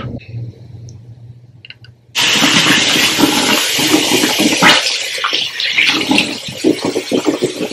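Loud rushing of running water that starts suddenly about two seconds in and goes on steadily, after a quiet stretch with a faint low hum and a few light clicks.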